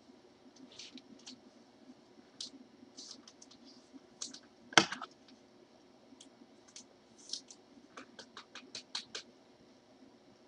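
Trading cards and their packaging handled by gloved hands: scattered light clicks and scrapes, with one sharp, louder click about halfway and a quick run of clicks near the end, over a faint steady hum.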